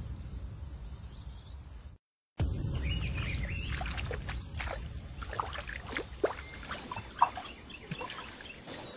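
Outdoor jungle ambience: a low rumbling haze with a steady high insect drone, cutting out to silence for a moment about two seconds in, then scattered short chirps and clicks over the drone.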